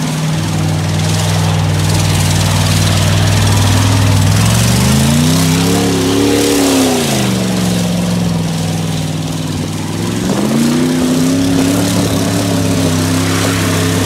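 Dodge Durango's straight-piped exhaust, with the muffler gone and the catalytic converter cut off, running loud as the truck is driven through mud. The engine note holds steady, revs up about five seconds in and drops back, then rises again about ten seconds in and stays up.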